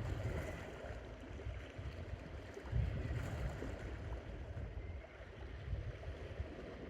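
Wind gusting over the microphone with a low, uneven rumble, over the steady wash of the sea against the rocks.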